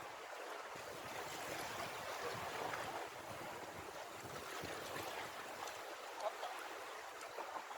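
Steady wash of sea water and small waves in a fast tidal current, with no single loud event.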